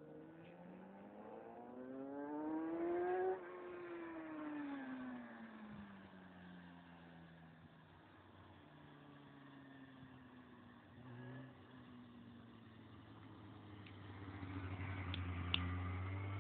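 Kawasaki ZX-6R 636's inline-four engine working around a tight course: it revs up in rising pitch to about three seconds in, drops off suddenly, falls away in pitch, then holds a lower note. It grows louder near the end as the bike comes past close, leaning through a corner.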